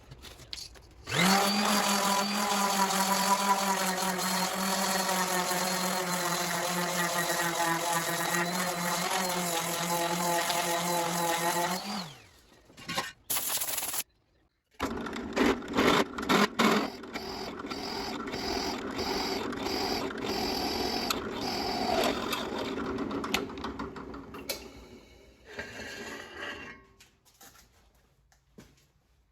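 A small electric power tool motor spinning up and running steadily for about ten seconds, then cut off; after a short silence a power tool runs again with clicks and knocks of work against it, then dies away.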